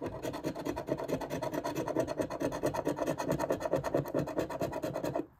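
A large metal coin scraping the coating off a scratch-off lottery ticket in rapid back-and-forth strokes, stopping abruptly near the end.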